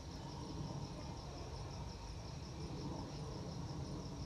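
Faint background insect chirping, a rapid, evenly pulsing high-pitched trill, over a low steady hum.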